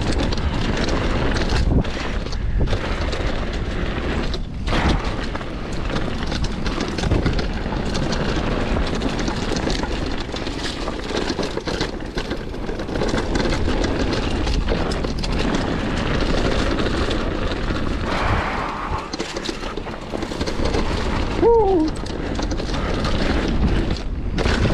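Downhill mountain bike rolling down a rough trail: loud crunching of tyres on dirt and gravel, with wind buffeting the microphone. A short falling squeak comes near the end.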